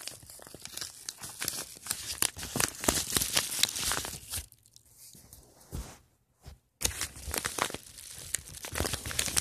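A yellow padded paper mailer envelope being torn open by hand, with dense crackling and crinkling of the paper. The tearing stops for about two seconds a little past halfway, then starts again.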